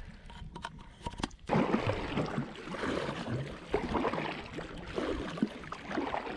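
A Lifetime Charger 100 kayak being paddled: a few light knocks in the first second and a half, then steady splashing of paddle strokes in the water.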